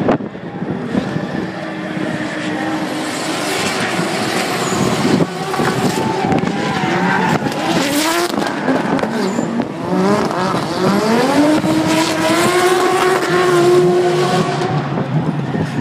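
Drift cars' engines revving hard, their pitch repeatedly climbing, dropping and holding as the cars slide sideways, with tyres squealing.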